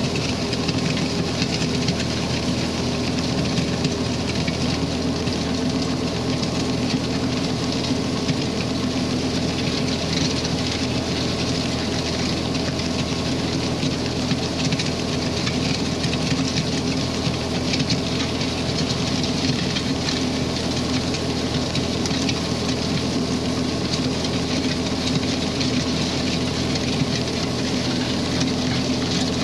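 Ford 8N tractor's four-cylinder engine running steadily under load, pulling a rear box blade that scrapes and drags loose gravel with a continuous gritty hiss. The engine is running on a freshly fitted replacement carburetor.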